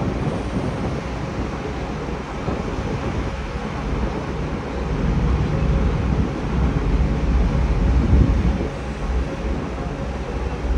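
Cruise ship under way: a steady low rumble with wind buffeting the microphone and a faint steady hum.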